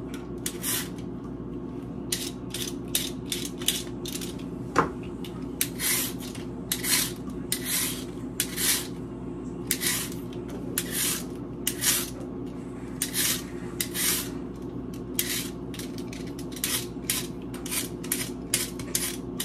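Hand vegetable peeler scraping down raw carrots in quick rasping strokes, about two a second, over a steady low hum.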